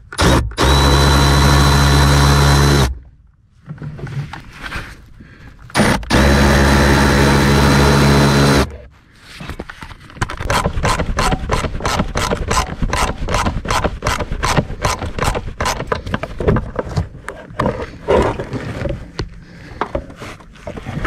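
A cordless power tool with an 8mm socket spins twice in steady, loud runs of about two and a half seconds each, backing out the blower-motor bolts. From about ten seconds in comes a long run of quick clicks, about four a second.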